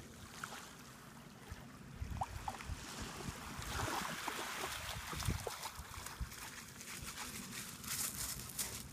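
Water splashing and sloshing as a dog wades out of shallow sea water, with wind rumbling on the microphone. Near the end, paws crunch on a pebble beach.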